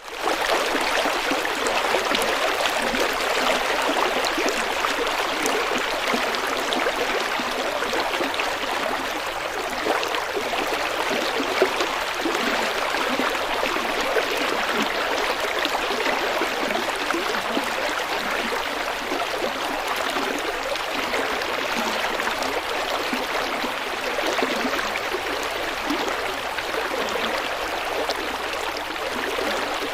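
River flowing: a steady, even rush of water.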